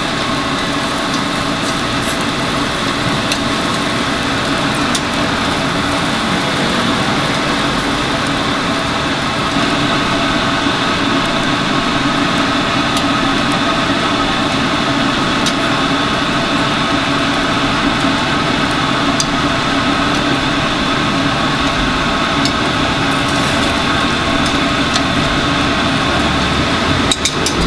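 A machine's steady hum, several held tones over a noisy drone, with scattered light clicks and taps.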